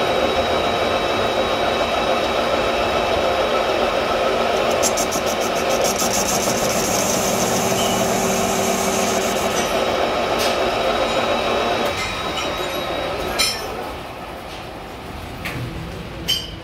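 Metal lathe turning a large iron shaft, the cutting tool facing its end: a steady machining noise with a high whine. About twelve seconds in the noise drops, falls again a little later, and a few sharp clicks follow near the end.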